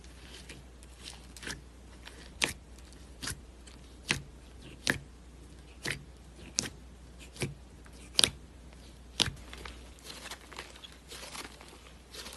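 Fingers pressing and poking thick slime in a round tub, giving about ten sharp, wet pops and clicks roughly a second apart, then softer crackling near the end.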